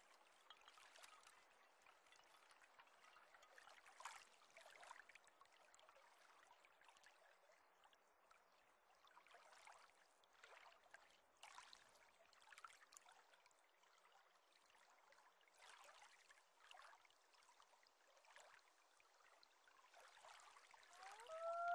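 Very faint trickling, running water. Near the end a common loon's call begins, gliding up and settling into a long held note.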